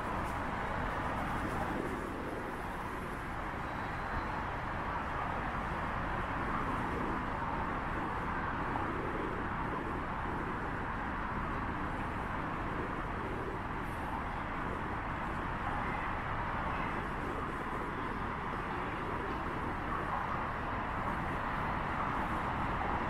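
Steady outdoor city ambience: a constant hum of distant road traffic.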